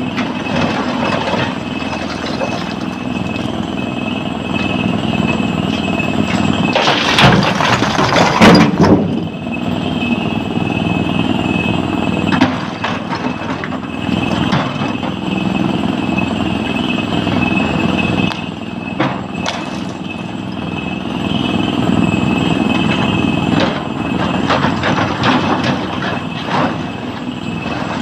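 SANY excavator's diesel engine running steadily under load as it digs and loads stone, with a steady high-pitched whine throughout. About seven seconds in, a loud crash of rock lasting about two seconds, with scattered knocks of stone later on.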